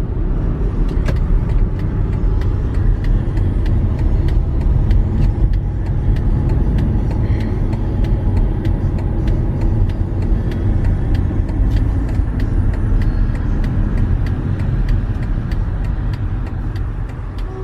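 Steady low rumble of a car's engine and tyres on the road, heard from inside the moving car, with faint light ticks at fairly even spacing.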